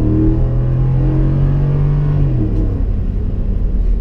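Ford F-150's 5.0-litre V8 heard from inside the cab while accelerating, its pitch climbing steadily, then dropping back just over two seconds in.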